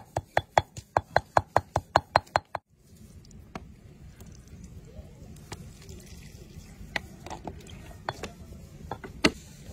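Stone pestle pounding garlic and chilies in a stone mortar, about five even strikes a second, stopping about two and a half seconds in. After that, only a few scattered light knocks of the pestle against the mortar as it works in the liquid.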